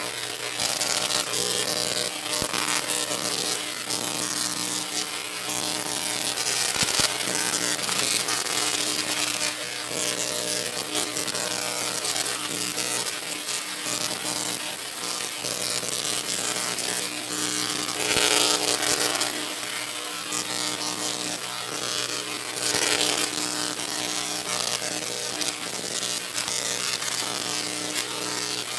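Big Bruiser, a 26-foot Tesla coil, firing: a steady buzzing crackle of its sparks over an electrical hum, swelling louder a few times.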